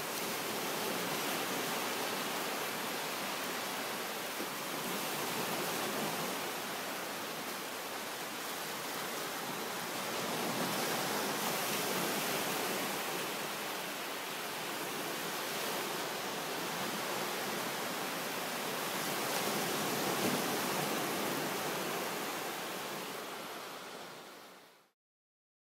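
Small waves rolling in and breaking gently on a sandy beach: a steady wash of surf that swells and eases every few seconds. It fades out near the end.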